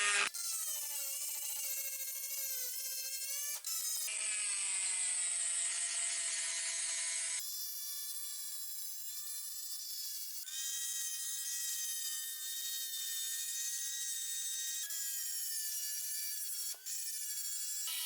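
Small electric power tool running, its motor whine drifting up and down in pitch as it is loaded. The sound comes in several short clips that cut abruptly into one another.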